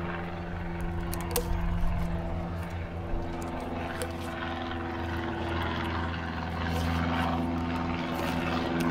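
Propeller airplane passing overhead: a steady low engine drone that grows louder near the end, with a few light clicks.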